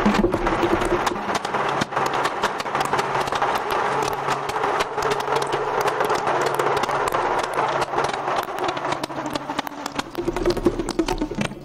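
Free group improvisation on saxophone, trombone, live electronics and Strombophone, played with extended techniques: a dense, noisy, rattling texture of rapid clicks over a low steady drone.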